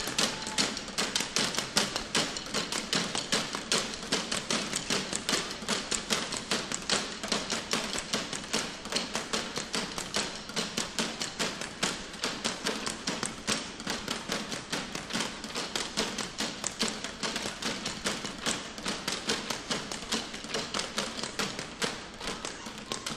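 Stick percussion: hockey sticks and other stick props clacking against each other and tapping the stage floor in a fast, steady rhythm of sharp taps and knocks, about four to five a second.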